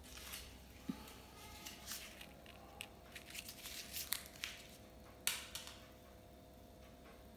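A crumpled paper ball crinkling and crackling in quick, irregular snaps, the sharpest a little past five seconds in.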